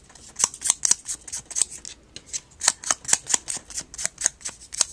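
A small Memento ink pad dabbed quickly and repeatedly against a die-cut paper flower to blend the ink colours, crisp light taps about four or five a second with a short pause near the middle.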